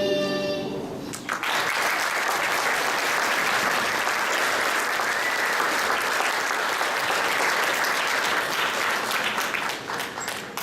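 A held musical chord dies away in the first second, then an audience applauds steadily, tailing off near the end.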